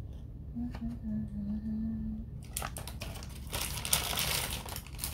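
Packaging of a boxed mobile phone telescope being handled, crinkling and crushing in a rustling burst of about two seconds in the second half, with a few small clicks.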